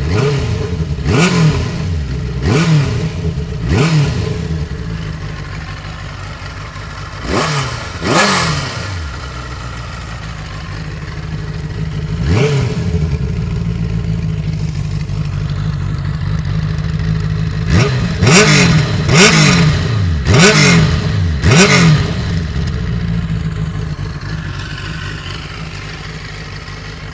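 Benelli TNT 600 motorcycle engine on its stock exhaust, idling between quick throttle blips, each rev jumping up and falling back. Four blips come in the first few seconds, two about eight seconds in, one about twelve seconds in, and a quick run of four from about eighteen to twenty-two seconds.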